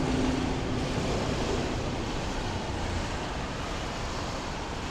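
Steady rushing wind noise buffeting the microphone outdoors, slowly easing off.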